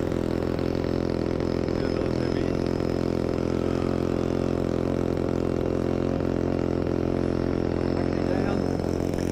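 A steady mechanical hum holding several even pitches, as of a motor running at a constant speed.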